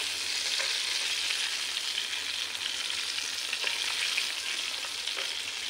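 Flour-battered chicken pieces deep-frying in hot oil: a steady sizzling hiss with light crackling.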